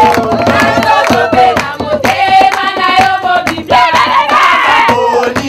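Voices singing a church praise song with hands clapping along to the beat.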